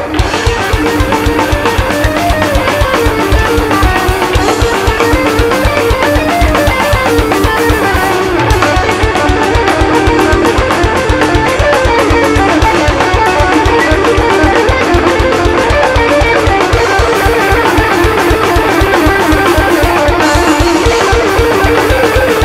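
Heavy metal band playing live: distorted electric guitar riffing over fast, steady drumming.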